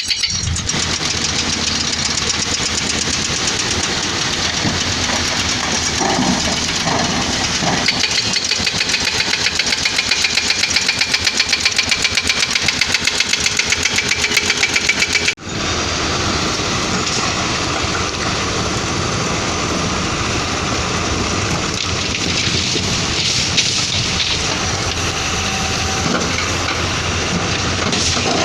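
Caterpillar 320D excavator's diesel engine running steadily, with a rapid, even pulsing for several seconds through the middle. The sound breaks off abruptly about halfway and resumes at once.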